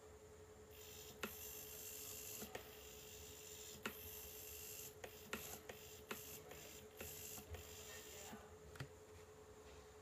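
Hitec HS-311 standard hobby servo panning a webcam in several short spurts under joystick control, each move a faint high whirring buzz that starts with a click.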